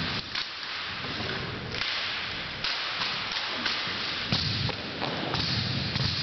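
Rifle drill: sharp slaps of hands on drill rifles and thuds of boots on a hardwood gym floor, coming irregularly about once a second, echoing in the large gym.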